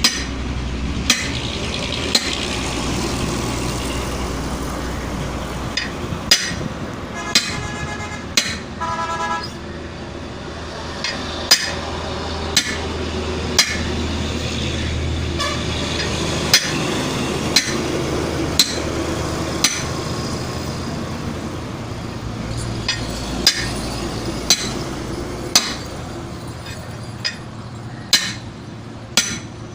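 Repeated sharp hammer blows on metal, about one a second with short pauses, over a steady low motor hum.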